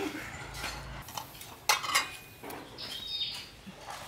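A metal spoon clinking and scraping against a metal pan and china plates as food is dished up, in a few separate knocks, the loudest a little under two seconds in. Birds chirp in the background from about three seconds in.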